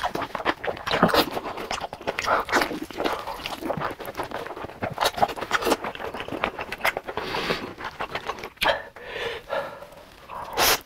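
Close-miked mukbang eating: a man slurping black bean noodles and chewing with a full mouth, making a dense run of irregular wet clicks and smacks. Near the end he takes a big bite of glazed meat wrapped in noodles.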